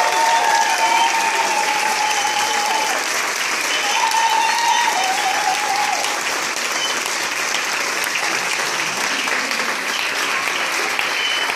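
Audience applauding steadily, with voices cheering over the first half.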